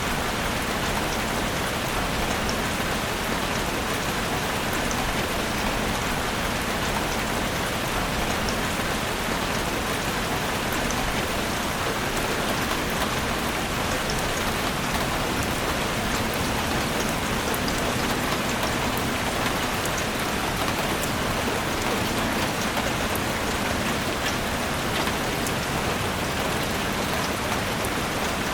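Steady rain falling on forest foliage and ground, a constant even hiss with many fine drop ticks on top.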